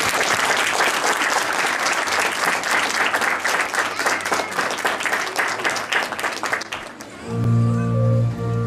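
Congregation applauding, dense and steady, dying away about seven seconds in as music with sustained low notes begins.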